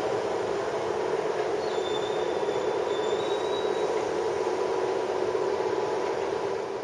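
Hankyu electric train running along the tracks: a steady rumble of wheels on rail with a steady hum. A faint high squeal comes in about two seconds in and fades again.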